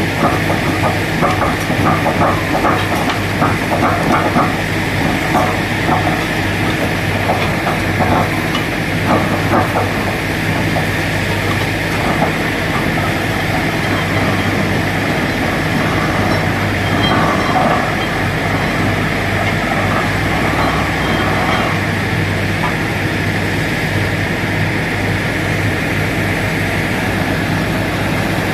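Truck-mounted down-the-hole (DTH) borewell drilling rig at work: its engine and air compressor run steadily with a hiss of compressed air blowing slurry out of the bore. A fast rattle of the drill hammer runs through much of the first half.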